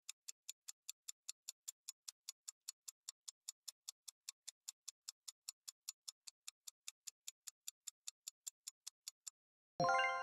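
Countdown timer sound effect: quick, even high ticks at about five a second, stopping just before a short bright chime of several tones near the end. The chime marks the answer being revealed.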